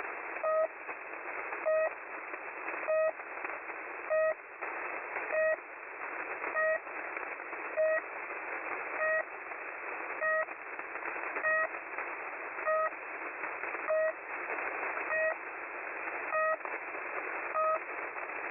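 Shortwave radio tuned to "The Pip", the Russian frequency-holder beacon on 3756 kHz: a short beep repeating about every 1.2 seconds over steady static hiss.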